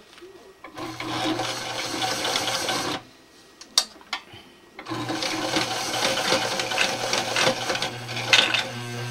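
Electric sewing machine running, stitching through thick layers of webbing and camouflage netting with a steady motor hum and needle rattle. It runs for about two seconds, stops with a sharp click in the pause, and starts running again about five seconds in.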